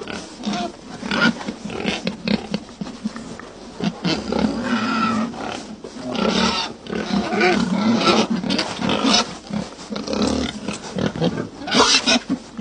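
Pig-like grunting and squealing in irregular bouts, loudest near the end.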